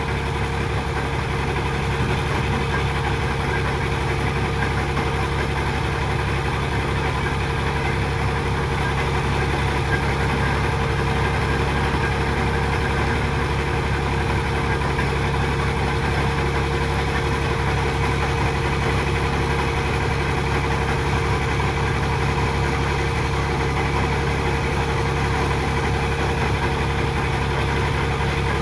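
A heavy machine's engine running steadily at a constant speed, an even drone with no hammer blows or changes in pitch.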